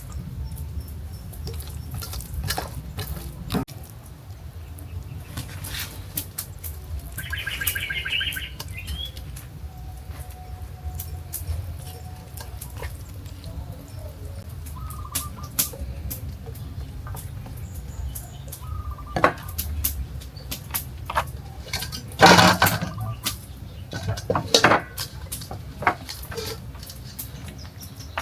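Scattered knocks and clattering over a steady low rumble, with short bird chirps now and then and one louder clatter about two-thirds of the way through.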